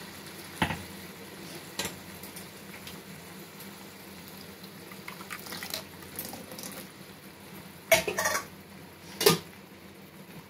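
Ground tomato-onion paste bubbling in oil in a kadai with a steady low hiss as water is poured in from a glass bowl. A few sharp clinks of utensils against the pan, the loudest about eight and nine seconds in.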